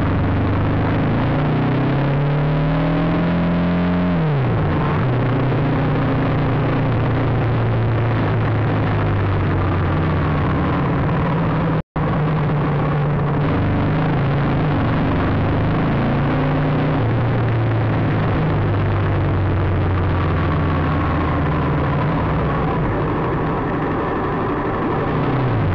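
Motorcycle engine running in traffic, distorted by the dashcam microphone, with wind and road noise; its pitch rises and then drops sharply about three seconds in. The sound cuts out for an instant about twelve seconds in.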